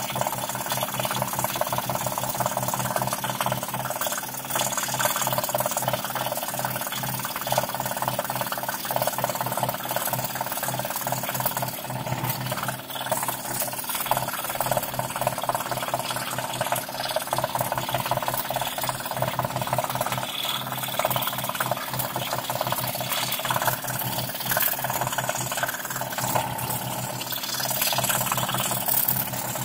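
Scroll saw running with its fine blade reciprocating rapidly and cutting through thin plywood, a steady fast mechanical chatter with the rasp of the cut.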